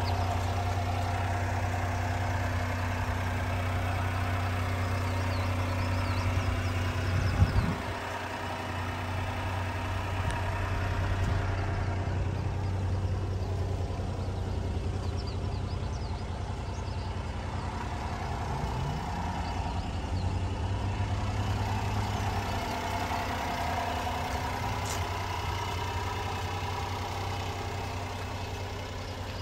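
1997 Honda Acty mini truck's small three-cylinder engine idling steadily. A brief knock sounds about seven seconds in.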